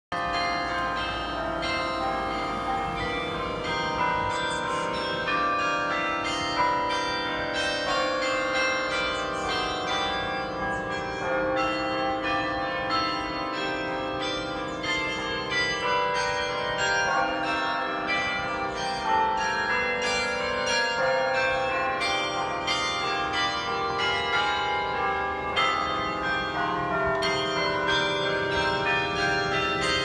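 Carillon bells in a tower playing a continuous tune, many struck notes ringing on and overlapping one another.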